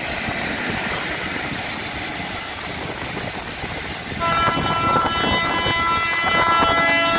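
Noise of an approaching goods train, then about four seconds in a locomotive horn sounds one long, steady blast as the wagons roll past.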